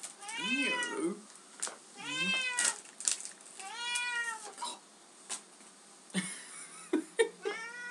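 Bengal cat meowing insistently while begging for treats: three long meows, each rising then falling in pitch, about every second and a half, and a fourth starting near the end. A few short sharp clicks fall between them.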